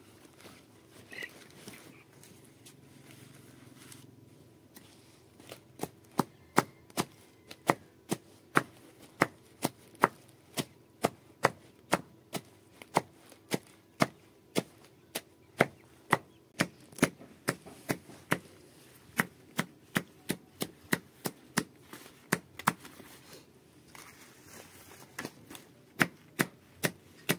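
Machete chopping green leaf stalks against a wooden board. It starts about five seconds in and goes on as a steady run of sharp chops, about two a second.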